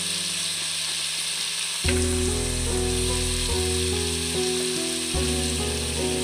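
Diced potatoes and tomatoes sizzling as they fry in oil in a steel kadhai, stirred with a metal spoon. Background music plays along, with deeper bass notes coming in about two seconds in.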